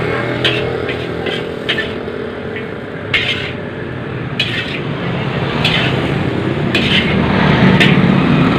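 Metal spatula scraping and clanking against a steel wok as fried noodles are scooped out, in sharp knocks spaced roughly a second apart, over the steady rushing noise of the wok's gas burner.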